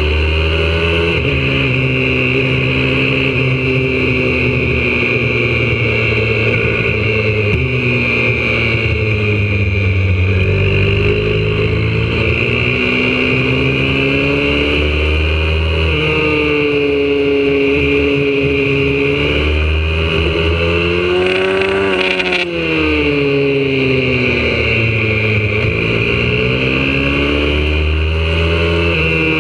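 Single-cylinder four-stroke engine of a YCF 125cc pit bike at full race pace, heard from on the bike. The revs keep climbing and then drop suddenly at each gear change, and fall away smoothly as it slows, with one deep dip a little after the 20-second mark before it pulls hard again.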